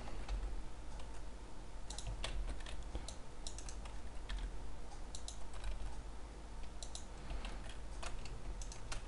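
Irregular clicks of a computer keyboard and mouse as shortcut keys are pressed and the mouse is clicked, over a low steady hum.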